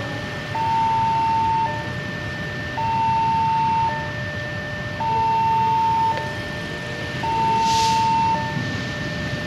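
Level-crossing warning alarm sounding an electronic two-tone signal, a higher tone then a lower tone, each about a second long, repeating about every two seconds as a train approaches. Underneath is the steady low rumble of a diesel locomotive moving very slowly over track under repair.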